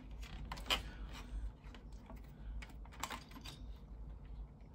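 Scattered light clicks and taps as a floppy drive and its cables are handled and fitted back into an Amiga 600's open plastic case.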